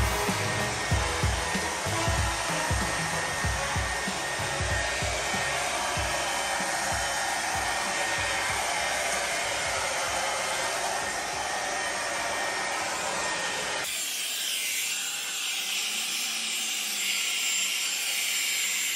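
A NASUM cordless 18 V battery leaf blower runs steadily, its fan pushing out a continuous rush of air across a bed of leaves. About 14 seconds in, the sound changes abruptly to a thinner, higher hiss with the low end gone.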